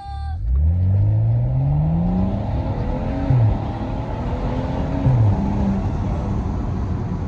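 BMW 335i's N55 turbocharged straight-six, through a straight-piped Akrapovic exhaust, pulling hard with its note rising over the first two seconds. Its pitch drops suddenly with a short loud spike about three seconds in and again about five seconds in, as at upshifts, and it runs on steadily after.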